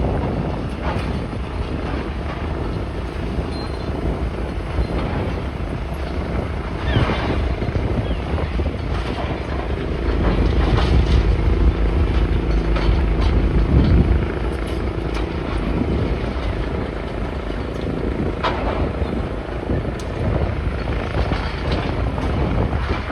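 Engine of demolition machinery running steadily, swelling louder for a few seconds in the middle, with scattered knocks and clatter.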